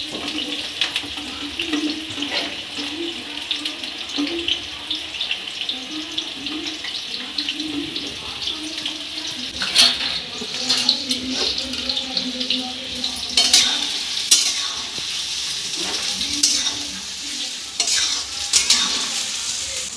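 Chopped onions sizzling in hot oil in a steel kadhai, stirred with a metal spoon that scrapes the pan. Several sharp metal knocks come in the second half.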